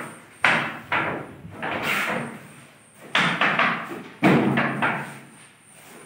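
An irregular series of loud bangs and knocks, several in quick succession, each ringing on briefly in the bare concrete rooms of a building under construction. The loudest comes a little after four seconds in.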